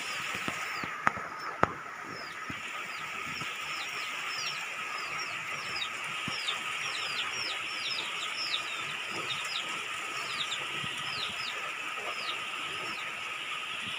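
Steady rain hiss with many short, high, falling bird chirps scattered throughout and a thin steady whine underneath. Two sharp clicks come about a second in.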